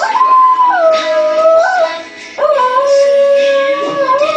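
Small dog howling along to a song playing on the radio: two long, wavering howls, the second starting after a short break about two and a half seconds in.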